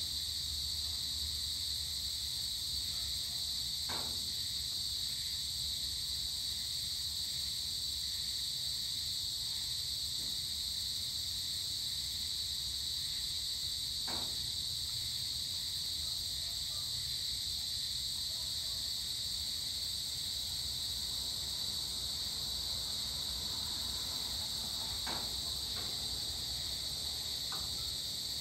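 Steady chorus of crickets and other insects: a continuous high, even shrill, with three or four faint short clicks scattered through it.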